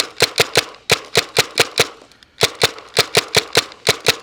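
Tippmann TMC mechanical paintball marker firing rapid semi-automatic shots on compressed air, about six a second, with a brief pause about two seconds in.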